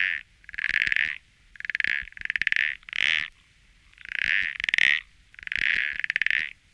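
Toad calling: a repeated series of short pulsed calls, each about half a second long, coming roughly once a second with some in quick pairs.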